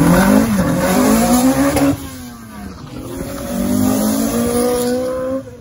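Two Honda Integra Type Rs accelerating hard one after the other. First the four-cylinder VTEC engine of a DC5 revs up, its pitch dipping briefly then climbing. After a sudden cut about two seconds in, a DC2 pulls past with its revs rising and loudest near the middle of the pass.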